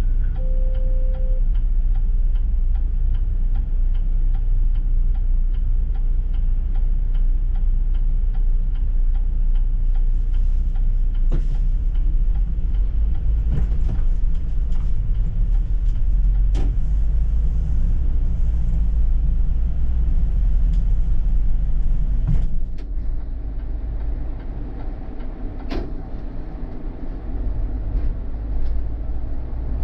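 City bus running, heard from on board: a heavy low engine and road rumble with a few sharp knocks and rattles. The rumble quietens suddenly about three-quarters of the way through.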